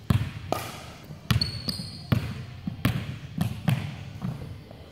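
A basketball being dribbled on a hardwood gym floor: about eight irregular bounces that echo in the large hall. There is a brief high sneaker squeak about a second and a half in.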